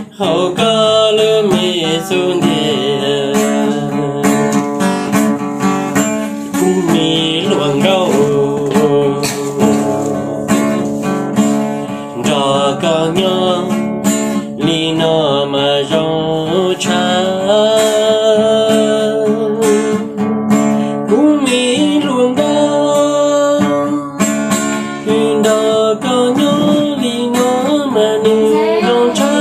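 Acoustic guitar strummed as accompaniment to a voice singing a wavering melody line.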